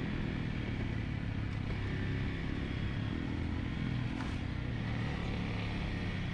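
Dual-sport motorcycle engine running steadily as the bike is ridden at low speed.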